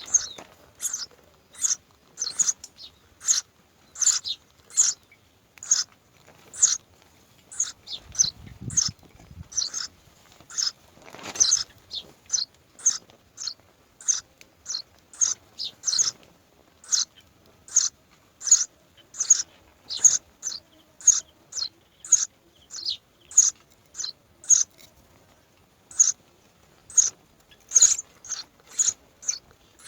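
A bird calling over and over in short, high chirps, about one or two a second, with a brief low rustle about eight seconds in.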